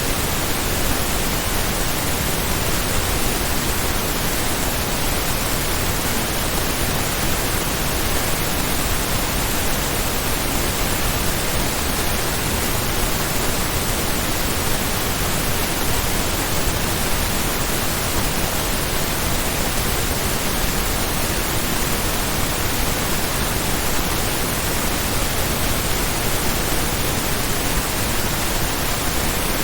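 Steady pink noise test signal in true stereo, loudness-normalised to −14 LUFS with 1 dB peak headroom: an even hiss that does not change.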